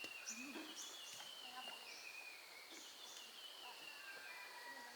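Faint rural ambience with high, thin animal calls, each sliding downward in small steps and repeating several times, over a faint steady high hum.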